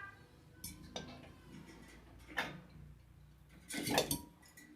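Metal clinking and knocking as parts are handled while a refrigerator compressor is set in place: a few separate sharp knocks, with the loudest cluster a little before the end.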